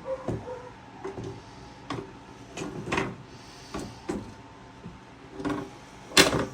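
Scattered knocks and clunks of PC case parts being handled and fitted by hand, with the loudest clunk near the end.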